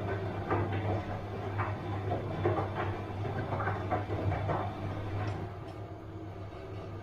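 Bosch washing machine running mid-wash: a steady low hum under irregular swishes and knocks of the load tumbling in the drum. The tumbling stops about five seconds in, leaving only the hum.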